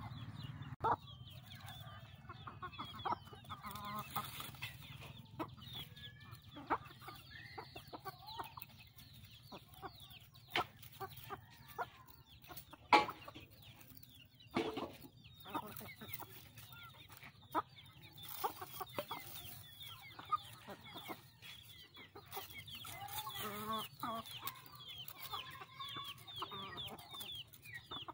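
A flock of free-range chickens clucking and calling while foraging, with many short high chirps and scattered sharp clicks, the loudest about halfway through.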